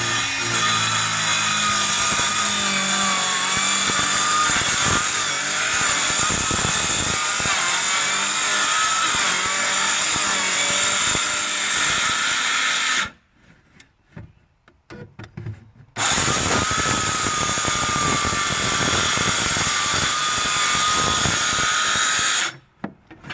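A small electric power saw running loud while cutting through the wooden wall of a shed: one cut of about thirteen seconds, a pause of about three seconds, then a second cut that stops shortly before the end.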